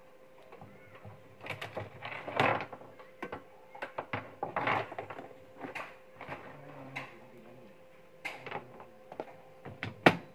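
Irregular rustling and clicking of electrical wires and a power cord being handled on a workbench, under a faint steady hum. Near the end, a rice cooker's lid is pushed shut with a sharp snap.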